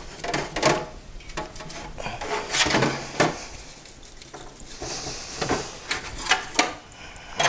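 Metal two-stroke cylinder handled in a stainless steel sink: irregular knocks and clunks as it is turned over and set against the sink, with rubbing as it is wiped down with a soapy paper towel.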